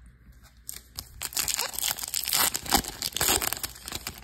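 Foil wrapper of a 2024 Bowman Baseball card pack crinkling and tearing as it is ripped open by hand, starting about a second in and lasting about three seconds.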